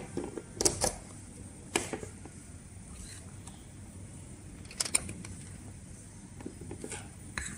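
A plug pushed into a power strip with a click, then a few scattered light clicks and knocks as the power cable and a plastic light bulb security camera are handled on a desk.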